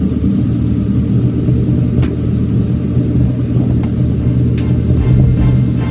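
Lamborghini Murciélago V12 idling with a steady, deep rumble. A single sharp click about two seconds in, as the scissor door is shut.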